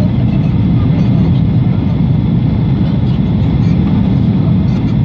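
Steady in-flight cabin noise of a Boeing 737-800 heard from a window seat over the wing: the low, even rumble of its CFM56-7B turbofan engines blended with the rush of air past the fuselage, unchanging throughout.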